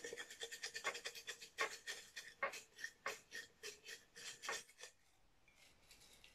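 Folded paper slips rattling inside a ceramic mug that is shaken quickly and evenly with a hand held over its top. The shaking stops just before five seconds in.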